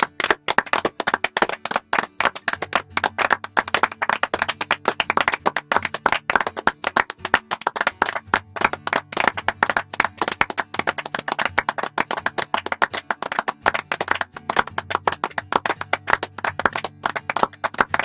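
Applause: many hands clapping fast and irregularly, with music playing faintly underneath.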